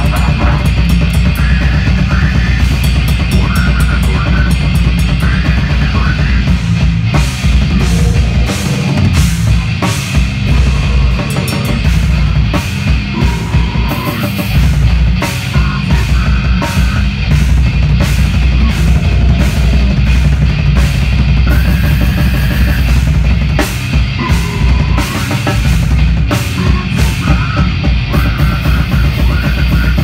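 Slam metal band playing live and loud: distorted guitars and bass over a drum kit. The riff breaks into choppy stop-start hits in the middle and again near the end.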